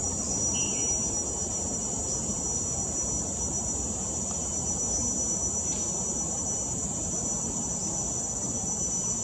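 Steady, unbroken high-pitched insect chorus, with a steady low rumble beneath it.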